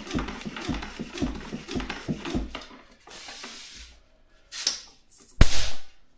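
Tyre pump being worked in even strokes about twice a second to inflate a tubeless road tyre, then stopping. Short hisses of escaping air follow, with a sharp click and a loud hiss near the end.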